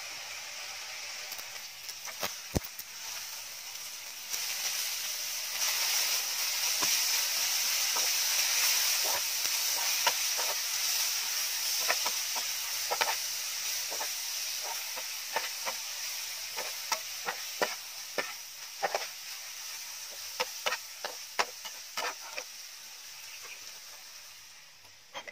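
Minced meat, chili and holy basil stir-frying in a nonstick pan: a steady sizzle that gets louder about four seconds in. Over it, a metal spatula scrapes and taps against the pan, with the taps coming thick and fast in the second half.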